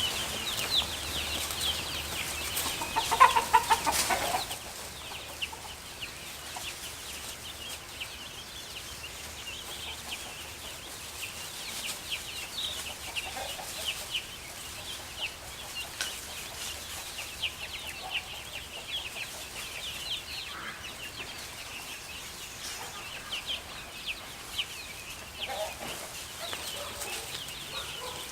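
A flock of young chickens peeping and chirping continuously in many short, high notes. About three seconds in, one bird gives a louder run of calls.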